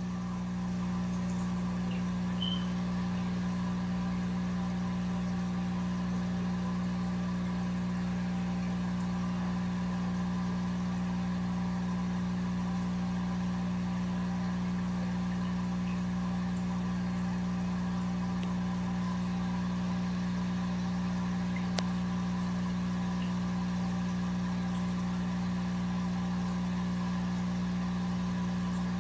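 Steady, unchanging low electrical hum and buzz of running fish-room equipment.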